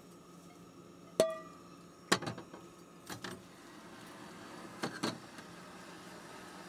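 Metal cookware clanking: a camp kettle and a frying pan knocking against each other and the stove. A sharp clank with a brief ring comes about a second in, then a few lighter knocks and clinks.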